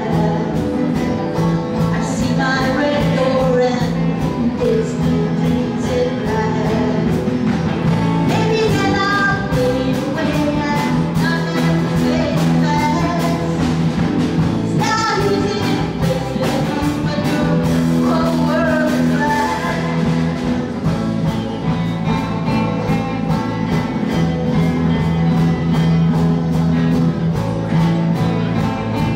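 A small live band playing a song: electric bass and guitar under a wavering lead melody.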